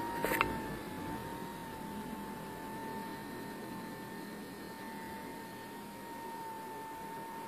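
Small 6 V high-speed DC motor of a homemade cardboard air blower running steadily with a whine. A brief click about half a second in.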